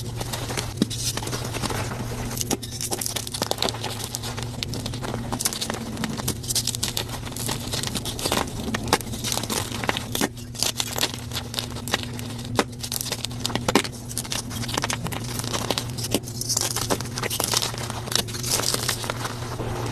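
Blocks of gym chalk being crushed by hand, a dense run of irregular crunches and crackles as the chalk crumbles to powder, with sharper snaps here and there, over a low steady hum.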